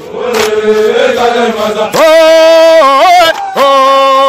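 Men's voices chanting a soldiers' song. About two seconds in, a single loud voice takes over, holding long notes that step up and down in pitch.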